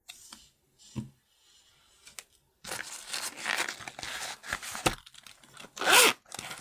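Nylon pencil case being handled, its fabric rustling and crinkling. It starts about two and a half seconds in after a couple of light knocks, with a louder rasp near the end.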